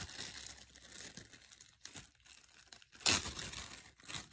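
Thin clear plastic crinkling as hands handle a plastic-wrapped ball and pull open a zip-top plastic bag. The crinkling comes in uneven bursts, the loudest a little after three seconds in.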